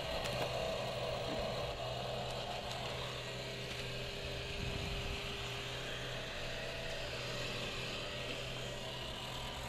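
Cooling fan of a Big Dipper 7R Sharpy moving-head light running steadily after power-on, with a low hum underneath.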